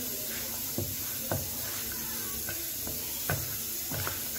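A hand kneading and mixing yeasted bread dough in a bowl: about four soft thumps as the dough is pressed and turned, over a steady hiss.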